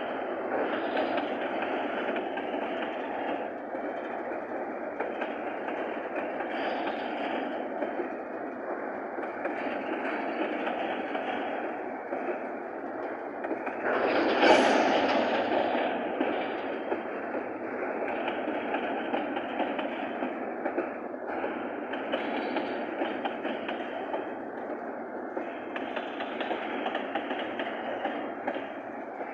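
Freight train wagons rolling past, a steady rumble and clatter of wheels on the rails, with one louder surge of noise about halfway through.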